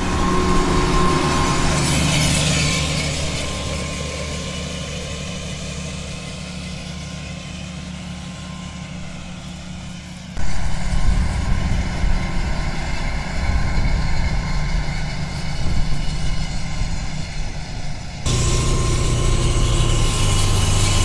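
Tractor engine running steadily as it pulls an Amazone precision seed drill through a field, fading gradually over the first ten seconds. It then gives way to a rougher, noisier low rumble, and returns close and louder near the end.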